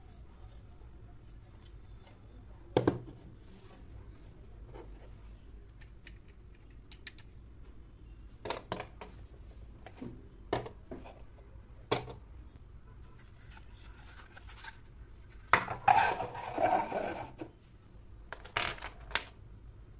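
Clicks, taps and small knocks of miniature furniture being handled and set down: a black metal-framed bar counter and metal-legged stools with wooden seats. Single knocks are scattered through, the sharpest about three seconds in, with a stretch of scraping and rustling lasting a couple of seconds past the middle.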